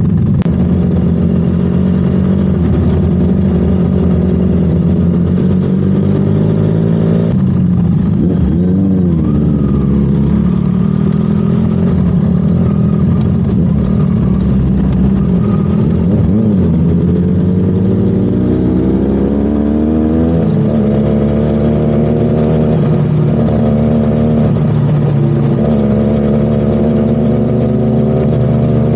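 Motorcycle engine under way, its pitch rising under throttle and dropping back at gear changes, with wind rush on the microphone.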